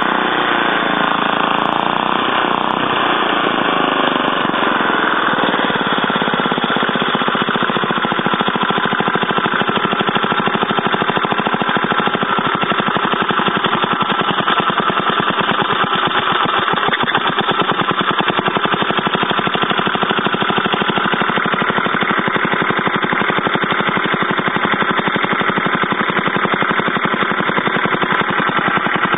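Small engine running, its speed rising and falling in the first few seconds as the throttle is worked by hand at the carburettor, then settling into a steady, even run.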